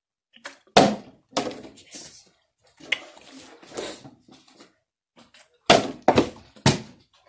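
Part-filled plastic water bottle being flipped and landing with hard thunks on a wooden table: two knocks about a second in, then three in quick succession near the end, with handling rustle between.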